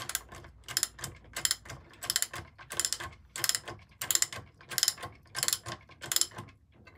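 Socket ratchet wrench clicking in repeated strokes, a quick run of pawl clicks on each back-swing, about three strokes every two seconds, as the bolts of a flexible prop-shaft coupling are tightened.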